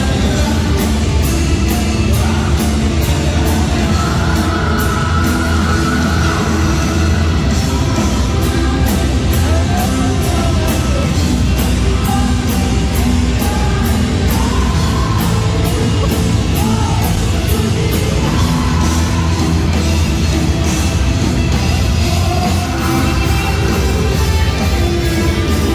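Live rock band playing loud heavy rock: electric guitars, bass and a steady drumbeat, with singing.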